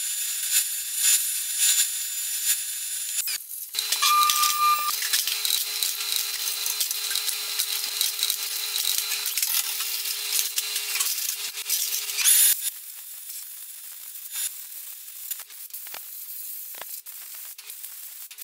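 Solvent spraying with a hiss from a parts-washer nozzle over an injection-pump camshaft, with the washer pump humming underneath and a short break about three seconds in. The spray cuts off sharply about two-thirds of the way through, leaving light clicks of metal parts being handled.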